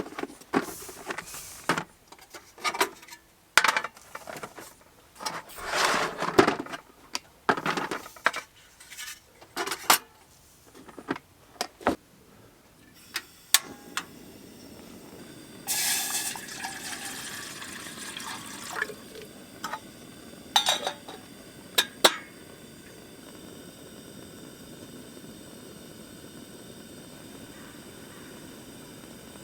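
Camping cookware handled with a run of knocks and clinks, then water poured into a kettle, then a small camping stove burner hissing steadily as it heats water for tea, the hiss starting a little under halfway in.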